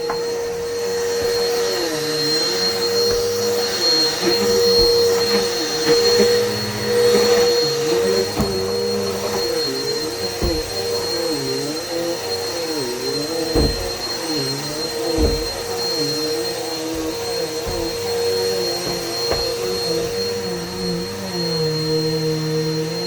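Vacuum cleaner running steadily, its motor pitch dipping and rising as the nozzle is moved about, with a few low bumps around the middle.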